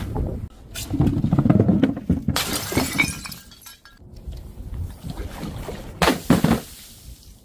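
Glass bottles breaking and shattering: a burst of crunching and smashing about a second in, and another sharp shatter about six seconds in.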